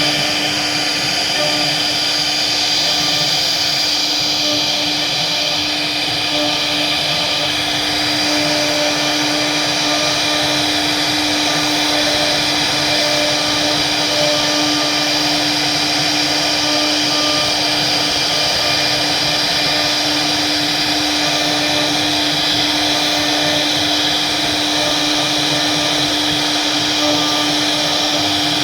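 CNC wood router running steadily as it carves a flower design: a constant whine from the spindle over a steady rushing cutting noise.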